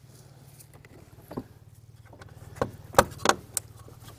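Plastic intake duct and trim clips being pushed and fitted into place by hand: a few sharp plastic clicks and knocks, most of them bunched about three seconds in, over a faint steady low hum.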